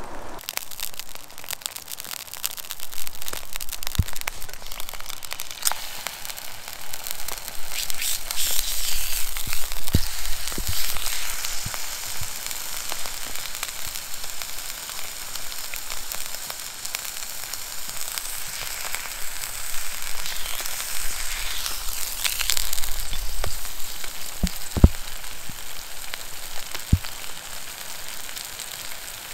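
Steak sizzling in a cast-iron Dutch oven lid over a small wood-burning camp stove: a steady frying hiss with scattered crackles. About two-thirds of the way through, a few short knocks as wooden tongs move the steak in the pan.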